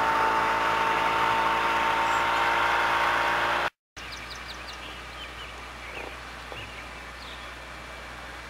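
Outboard motor of a small runabout running steadily at speed, a continuous droning hum that cuts off abruptly a little under four seconds in. After that, a much quieter outdoor background with birds chirping.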